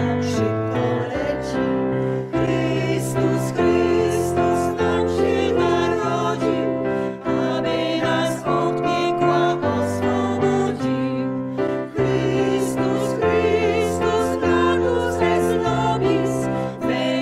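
Small women's choir singing a Polish Christmas carol (kolęda) to piano accompaniment, in phrases broken by short breaths every few seconds.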